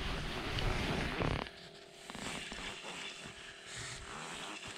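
Rustling of a winter jacket's fabric close to the microphone, loud for about the first second and a half, then fainter rustles and small ticks.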